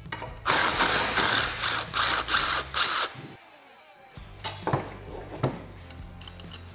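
Milwaukee M18 cordless power tool running in short pulses on a bolt for about two and a half seconds, then stopping. A few sharp clicks follow near the end.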